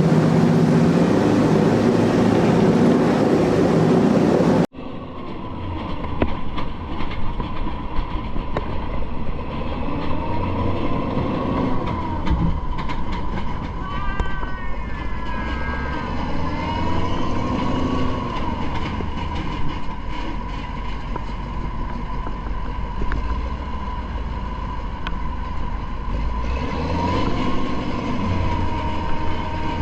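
A heavy amphibious assault vehicle's diesel engine runs with a loud, steady drone. About five seconds in, the sound cuts abruptly to a quieter take, where a low engine rumble goes on under a steady high whine, with faint distant voices now and then.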